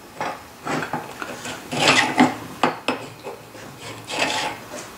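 A metal marking tool clinking and scraping against steel flat bar on a steel bench, in a string of irregular short scratches and sharp clicks, as layout points are scribed through blue marking dye.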